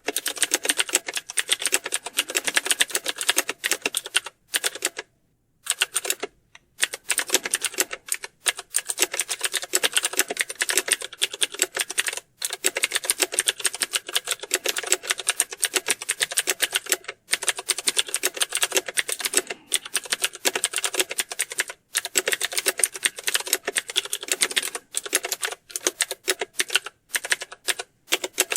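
Fast, continuous typing on computer keyboards: a dense run of keystroke clicks that breaks off briefly a few times, most clearly about five and six and a half seconds in.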